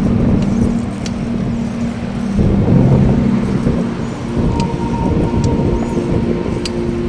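Wind and road rumble on the microphone of a moving bicycle, a dense low rushing noise, under background music with held notes.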